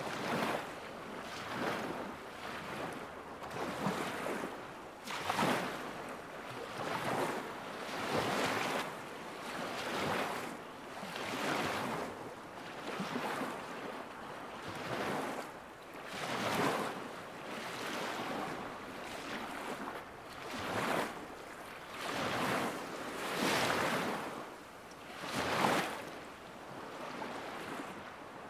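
Small lake waves lapping at the shore, coming in soft, regular swells about every second or so.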